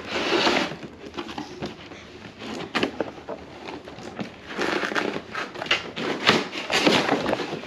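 Cardboard and plastic toy packaging being pulled open by hand: irregular rustling, crinkling and scraping with a few sharp clicks, loudest near the start and again in the second half.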